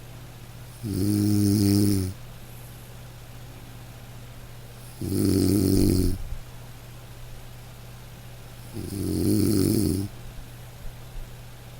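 Snoring: three loud, rasping snores about four seconds apart, each lasting a little over a second, with quiet breathing between them.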